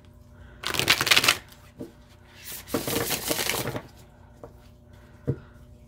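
A large tarot deck being riffle-shuffled: two quick bursts of rapidly flicking cards, the first about a second long and the second about a second and a half. Two soft knocks follow near the end.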